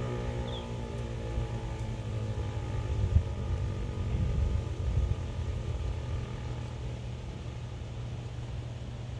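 ASC Tempest T-135 tornado siren winding down at the end of its growl test: a falling tone that fades away over the first five seconds or so. Under it runs a steady low rumble that swells briefly around three and five seconds in.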